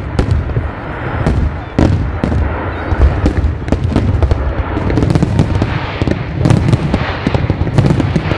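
Fireworks display: a dense, continuous barrage of aerial shell bursts, many sharp bangs in quick succession over a constant low rumble.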